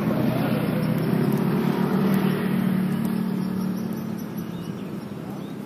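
A motor vehicle engine running with a steady low hum, fading away over the last couple of seconds.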